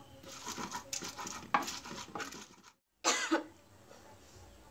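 A woman coughing in short bursts, several in a row, set off by the stinging fumes of dried chilies being pounded. The sound cuts out briefly just before three seconds in, then comes one more loud cough.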